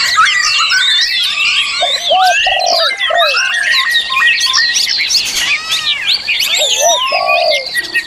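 A dense chorus of many songbirds singing at once: overlapping rapid whistles, trills and chirps, with lower, coarser repeated notes about two seconds in and again near the end.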